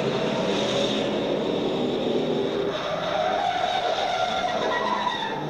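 Movie soundtrack of two V8 muscle cars, a 1968 Ford Mustang GT and a Dodge Charger, driven hard in a chase: engines revving with tyres squealing, and an engine note rising about three seconds in.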